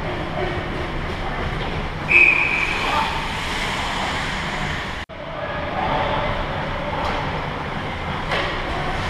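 Ice hockey game on an indoor rink: a steady din of skates on ice, players and distant voices. A short, shrill whistle sounds about two seconds in, and the sound cuts out for an instant just past halfway.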